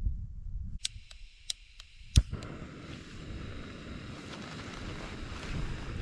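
Camp stove's igniter clicking about six times, then the gas burner catches just after two seconds in and runs with a steady hiss.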